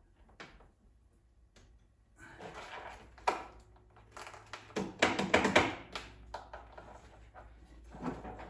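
Knocks, clicks and rattles of hands handling parts and cables on a garden tractor. A sharp knock comes a little over three seconds in, a burst of clattering about five seconds in, and another knock near the end. No engine cranks or runs.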